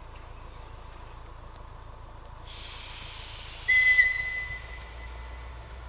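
DR1A diesel multiple unit sounding its whistle. A rush of air starts about halfway through, then one short, loud, high-pitched blast that dips slightly in pitch as it cuts off and fades over about a second. The low rumble of the approaching train grows after it.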